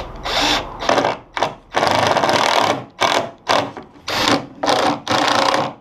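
Cordless drill driving 25mm stainless steel screws through plywood into a pine rail in short start-stop bursts, with one longer run of about a second near the middle, setting the screw heads just below flush.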